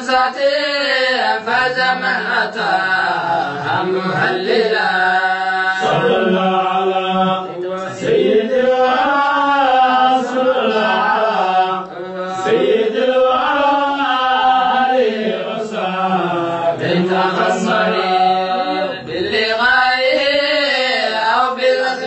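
Male chanting of a Somali qasiida, an Islamic devotional poem, sung in long melodic phrases that rise and fall, with brief breaks between them.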